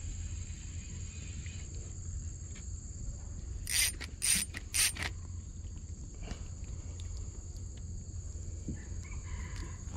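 Spinning fishing reel wound in three quick bursts a little before the middle, as a giant freshwater prawn is reeled up to the boat, over a steady high buzz.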